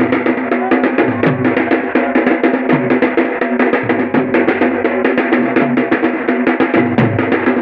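Several rope-tensioned dhol barrel drums, one with a steel shell, played fast with sticks in a dense, driving rhythm. A deep bass stroke with a falling pitch comes about once a second. Steady held pitched tones sound underneath the drumming.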